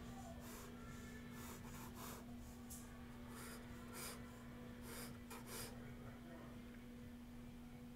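Ink pen scratching across sketchbook paper in a quick run of short, separate line strokes, thinning out after about six seconds, over a faint steady electrical hum.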